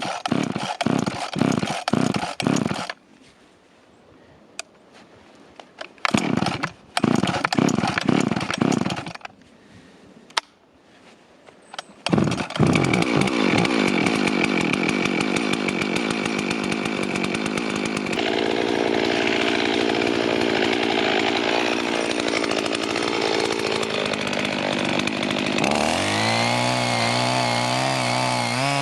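Husqvarna 55 two-stroke chainsaw being pull-started: two runs of rapid pulsing with pauses between them. The engine catches about twelve seconds in and runs steadily, then revs up near the end.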